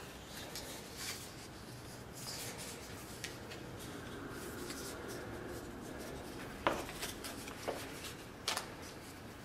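Paper pattern rustling and rubbing as it is handled on a cutting mat, then three sharp clicks in the second half, the first the loudest, as the pattern and a piece of leather are handled.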